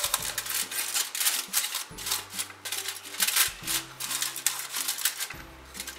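Aluminium foil crinkling in a quick, irregular run of crackles as hands press and crimp it tight around the rim of a ramekin. Background music with low sustained notes plays underneath.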